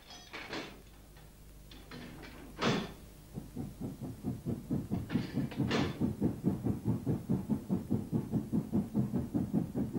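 Steam locomotive working hard up a steep incline, its exhaust beats coming about three a second over a low rumble and growing louder as the train approaches. Before the beats start there are a few sharp knocks, one loud one a little under three seconds in.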